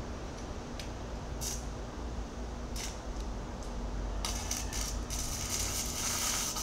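Electric arc welding on a steel excavator bucket: a few brief crackles as the arc is struck, then, from about five seconds in, the steady sizzling crackle of the running arc.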